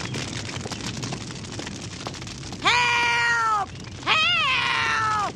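An elderly woman's two long, shrill cries for help from inside a burning house, the second wavering at its start, over a steady crackle of fire.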